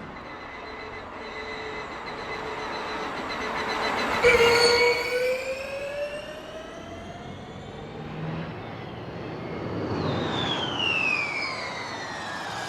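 Formula E electric race car's high-pitched motor and drivetrain whine with tyre and wind rush as cars pass: a whine comes in sharply about four seconds in and rises in pitch as the car accelerates away, and another whine about ten seconds in falls in pitch.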